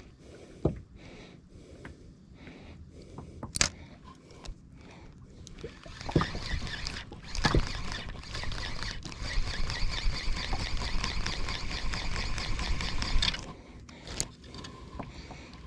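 Shimano Vanford spinning reel being cranked to work a jig, its turning rotor and gears giving a fast, even ticking from about six seconds in until it stops near the end. Earlier there are a few scattered clicks and one sharp click of rod and reel handling.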